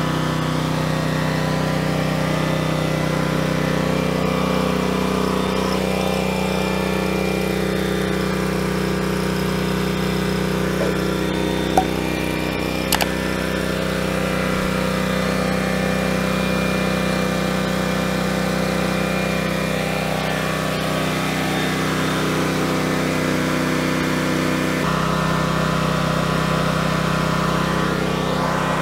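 Cat RP12000E portable generator's engine running steadily at full speed with the idle control still off. Two brief clicks near the middle, and a slight shift in tone about 25 seconds in.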